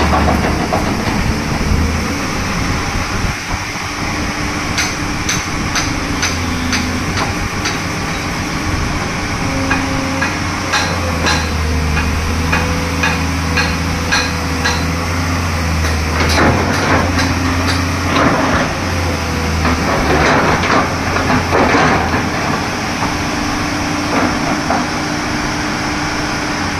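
Tata Hitachi crawler excavator running: a steady low diesel engine hum with higher tones that step up and down as the boom and bucket work. A run of sharp metallic clicks and clanks comes between about 5 and 12 seconds in.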